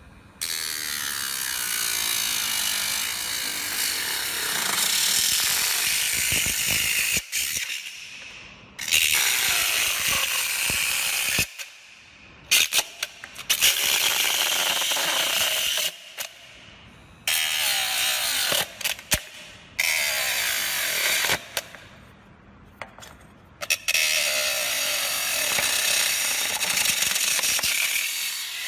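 A homemade tool driven by a 12V DC motor runs an abrasive disc against material in about six separate passes, each lasting a few seconds, with short pauses between. Each pass gives a loud, harsh grinding hiss.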